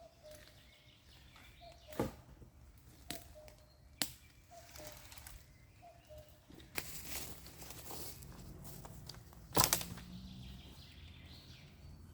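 Forest ambience: a few sharp snaps or knocks, the loudest near the end, and a rustling stretch in the middle, while a bird repeats a short low call about once a second.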